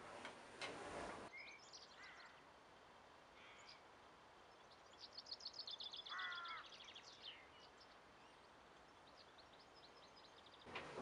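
Faint birdsong: several small birds chirping, with a fast high trill about five to seven seconds in. In the first second a louder rushing noise cuts off suddenly.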